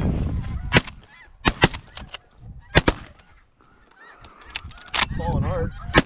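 Shotgun blasts, fired several times in quick succession by two hunters, over snow goose calls honking repeatedly.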